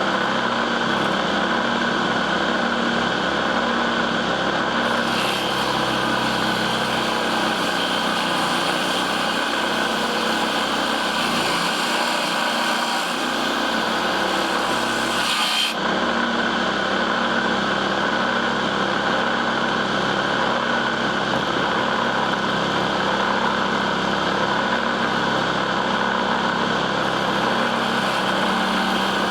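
Homemade table saw driven by a small 997 DC motor, running steadily with its blade sawing through wood.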